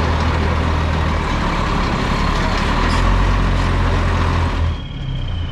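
Heavy diesel engine of a Freightliner truck idling with a steady low rumble, dropping off suddenly near the end.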